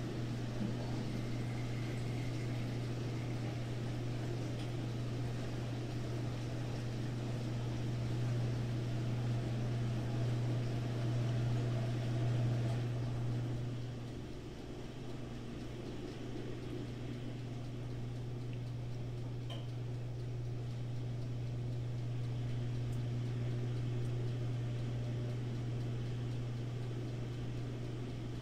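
A steady low machine hum, a little louder for a few seconds before easing off about halfway through.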